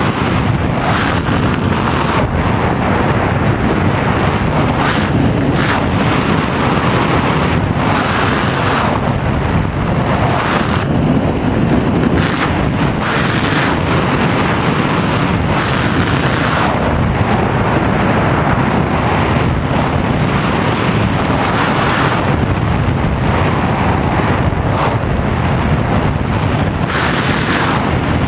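Airflow rushing over the onboard camera's microphone of a Sky Surfer RC glider in an unpowered glide: a steady hiss that swells in gusty surges every few seconds, with no motor tone.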